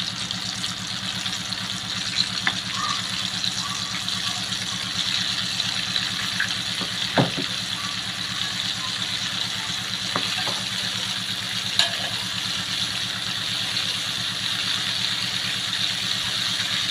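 Battered squid deep-frying in hot oil in a wok: a steady sizzle with a few sharp pops, the loudest about seven seconds in. A steady low hum runs underneath.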